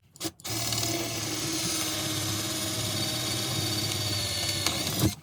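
Power driver spinning a drill bit, drilling out an old rivnut hole to a larger size: a steady whir at constant speed for about four and a half seconds that stops abruptly near the end.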